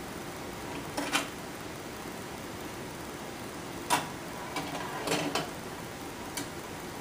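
Steady hiss of an aquarium's air-stone bubble curtain, broken by a handful of short sharp clicks and clatters, the loudest about a second in and near four seconds.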